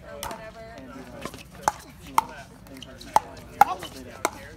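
Pickleball rally: sharp, hollow pops of paddles striking a plastic pickleball, about seven in under five seconds, irregularly spaced half a second to a second apart.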